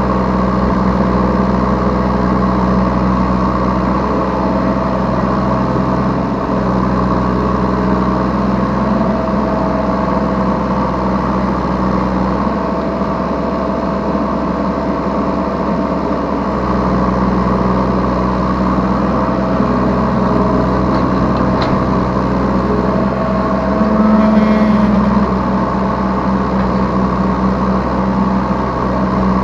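Yanmar B3Σ 3-ton mini excavator's diesel engine running steadily, heard from the operator's seat, and louder for a moment about 24 seconds in.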